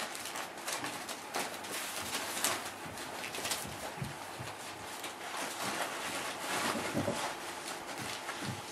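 Boerboel puppies moving about in a whelping box: a steady run of small scratches, knocks and newspaper rustling, with a few louder thumps.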